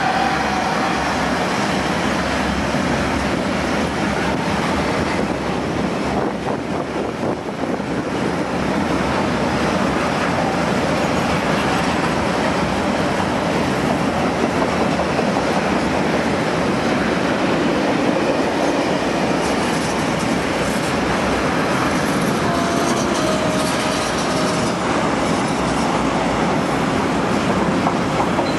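A long freight train of rail tank wagons rolling steadily past at close range, its wheels running over the rails.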